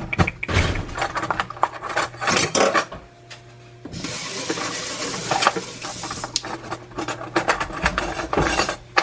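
Kitchen utensils and dishes clattering, knocking and scraping in handling, with a stretch of steady hiss for a couple of seconds about four seconds in.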